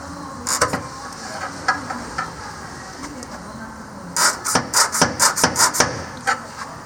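Sharp clunks and knocks from the play in a Nissan C25 Serena's failing engine member (subframe). Two come about half a second in, and a quick rattling run of about eight near the end.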